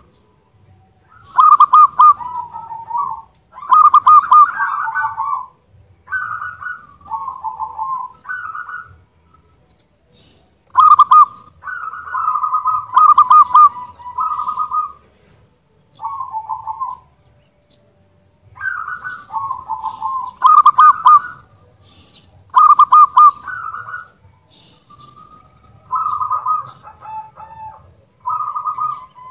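Zebra dove singing loudly: phrase after phrase of rapid staccato cooing notes, each phrase lasting a second or two, with short pauses between them.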